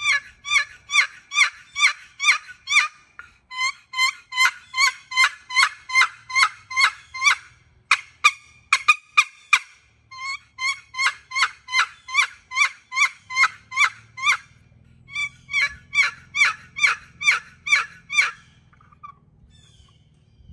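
Long turkey box call, an ebony lid inlaid with white maple stroked across a solid butternut box, yelping in runs of short, raspy notes at about three to four a second, with a quicker, sharper run around eight seconds in. It is a loud box, made to carry on windy days.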